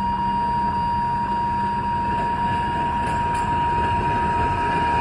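Level-crossing warning bell ringing steadily, about twice a second, over the low rumble of the approaching Alishan Forest Railway DL-47 diesel locomotive.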